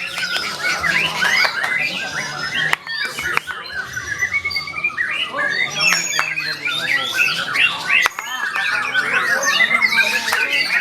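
White-rumped shama (murai batu) singing a continuous, rapid song of varied whistles and chattering notes that slide up and down in pitch.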